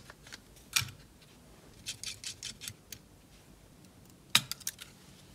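Small clicks and taps of a partly disassembled Sony A7M3 camera body being handled and taken apart, with two sharper clicks, just under a second in and after about four seconds.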